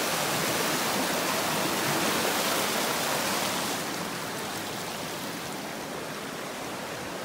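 Small stream cascade splashing over mossy rocks: a steady rush of running water that turns somewhat fainter about four seconds in.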